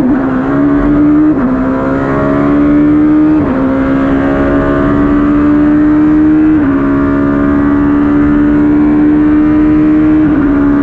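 Ligier JS P2's Judd V8 racing engine at full throttle, heard from the cockpit, accelerating up through the gears: the pitch climbs steadily in each gear and drops sharply at four quick upshifts, about a second and a half in, at three and a half seconds, at six and a half seconds and near the end.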